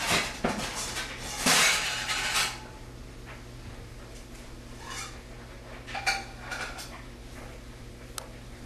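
Cat lapping milk from a small square ceramic dish, its tongue and chin clicking and knocking against the dish. A busy run of clicks and scrapes over the first two and a half seconds, then a few scattered single clicks.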